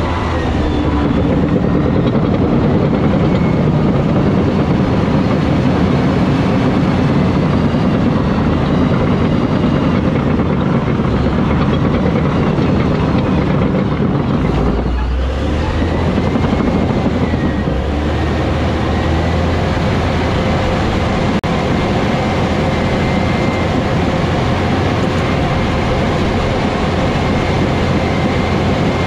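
Cat D7 bulldozer running at work, heard close up from its cab roof: a loud, steady engine and drivetrain noise with a faint whine, shifting briefly about halfway through.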